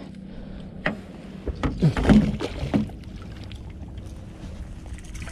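Hooked speckled trout thrashing and splashing at the water's surface beside the boat as a landing net is worked toward it: a few sharp splashes and knocks in the first three seconds, loudest about two seconds in, over a faint steady hum.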